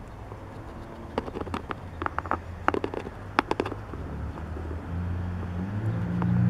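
A scatter of small sharp clicks and taps, then the low steady hum of a motor vehicle's engine growing louder over the last second or so.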